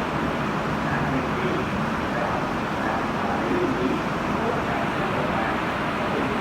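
Steady road traffic noise, with faint indistinct voices underneath.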